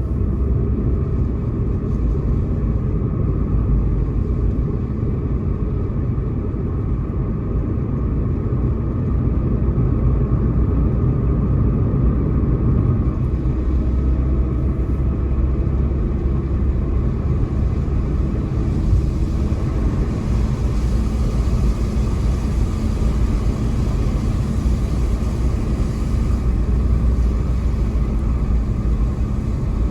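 Steady road noise of a car being driven: a low rumble of tyres and engine, with a light hiss that grows a little louder past the middle.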